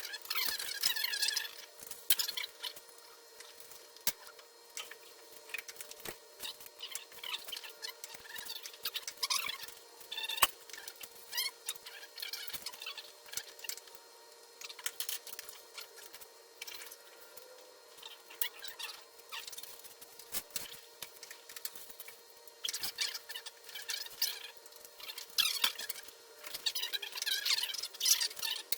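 Garage work noise: scattered metallic clicks, clinks and knocks of tools and parts, with bursts of squeaky scraping about a third of the way in and again near the end, over a faint steady hum.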